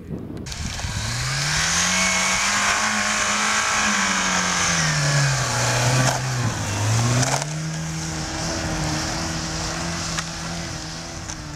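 Lada Niva's engine revving hard under load through snow, with a hiss from the spinning wheels. The engine note climbs, sags about five seconds in, jumps back up near seven seconds, then holds and fades a little as the car pulls away.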